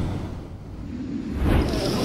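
Whoosh transition sound effect over a low rumble. It fades in the first second and swells again near the end.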